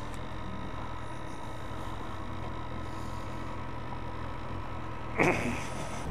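Motorcycle engine idling steadily, with a brief loud pitched sound about five seconds in.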